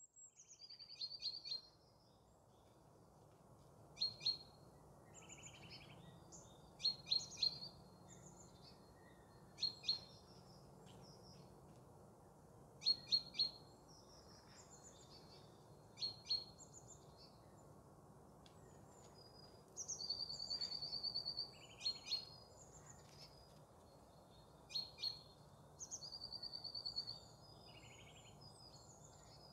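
Bohemian waxwings calling: high, thin trills, the two longest lasting about a second each, with short double and triple chirps every few seconds.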